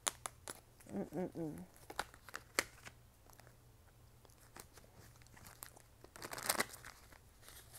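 Tarot cards being handled: scattered light clicks and snaps, with a louder rustling burst about six and a half seconds in. A brief hum from the reader about a second in.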